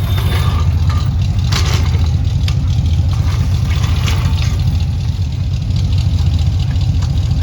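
A 1979 Ford F-100's engine idling with a steady low growl, still cold after a fresh start. A few short sharp clicks sound over it about 1.5, 2.5 and 4 seconds in.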